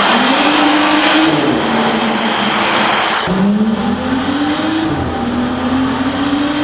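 Car engine accelerating hard through the gears in a road tunnel: its pitch climbs, drops sharply at a shift a little over three seconds in, then climbs again and eases off near the end.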